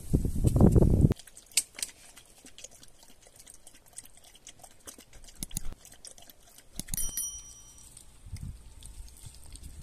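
A dog chewing and licking raw meat: irregular wet clicks and smacks of teeth and tongue. A brief loud low rumble comes in the first second.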